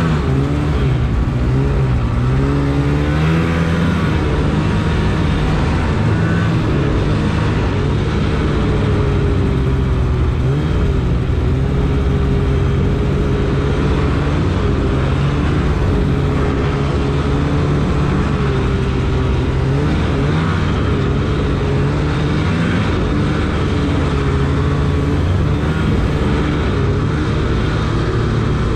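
Polaris snowmobile engine running under way on a trail, loud and continuous. Its pitch wavers up and down with the throttle in the first few seconds, then mostly holds steady, with a few brief dips and rises later.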